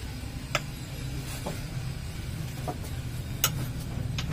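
A handful of short, sharp knocks and clicks, about one a second, from work in a truck's engine bay, over a steady low hum.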